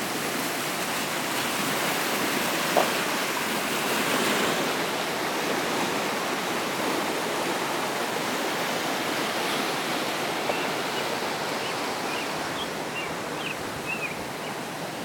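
Flooded, muddy creek rushing steadily past: a constant broad rush of fast, high water. A brief tap about three seconds in, and a few short high chirps near the end.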